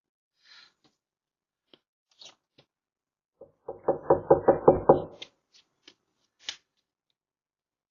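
A rapid run of about ten knocks on a door, lasting about a second and a half a little before halfway in, with a few faint clicks and rustles before and after.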